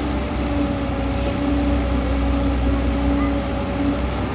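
Engine of a well-drilling rig running steadily, a low rumble with a steady droning hum.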